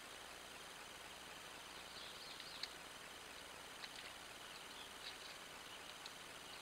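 Faint outdoor wetland ambience: a steady hiss with a thin insect-like trill, and from about two seconds in a handful of short, high chirps from a small bird, spaced about a second apart.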